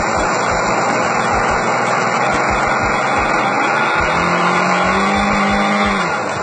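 Magnum .46 nitro-fuel model airplane engine running loud over a heavy rumbling noise. A clear, high engine note comes through from about four seconds in, rises slightly, then fades out near the end.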